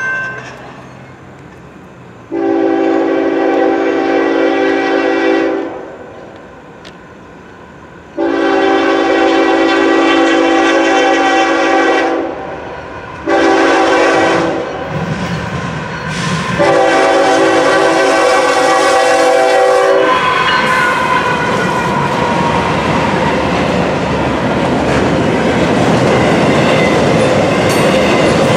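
Norfolk Southern GE ES44AC locomotive's air horn sounding the grade-crossing signal: two long blasts, a short one and a final long one. The horn gives way to the wheels clattering as the double-stack container cars roll past close by.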